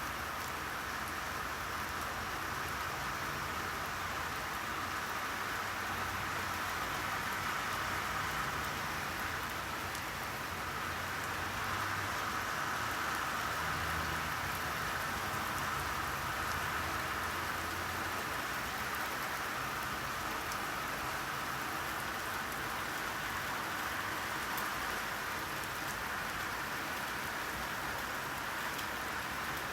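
Steady rainfall: a continuous patter of raindrops on a surface, with fine scattered drop ticks.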